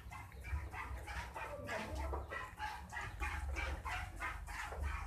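Milk squirting by hand from a cow's teats into a pail, in short rhythmic jets about three a second.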